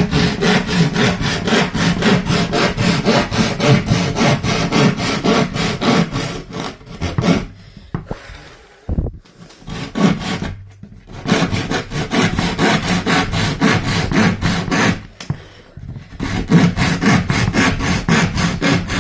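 A hand saw cutting through a wooden table top in quick, even back-and-forth strokes, pausing briefly twice.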